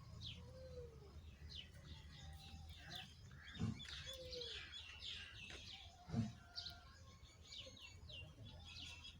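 Small birds chirping continuously, many short high chirps overlapping, over a steady low hum. Two brief dull knocks stand out, about a third of the way in and again about two-thirds in.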